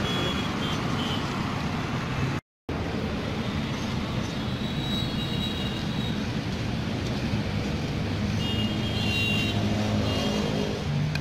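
Steady street traffic noise with a low engine hum running underneath and a few short high tones. The sound cuts out for a moment about two and a half seconds in.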